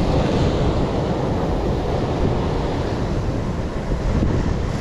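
Sea surf breaking and washing against a rocky shore, a steady loud rush, with wind buffeting the microphone.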